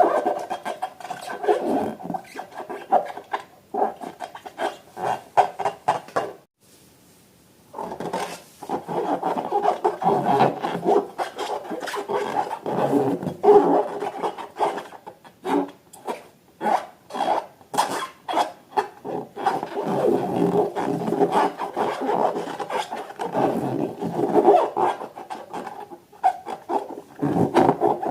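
Rubber balloons and slime being handled, giving an uneven run of rubbing, squeaking and squelching strokes, with a pause of about a second and a half a little past a quarter of the way in.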